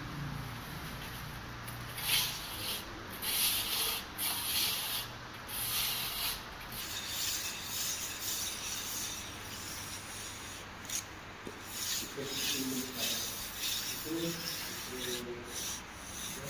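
A mason's hand tools scraping and rubbing over wet cement plaster: a run of short, gritty scrapes a few seconds in, then softer rubbing.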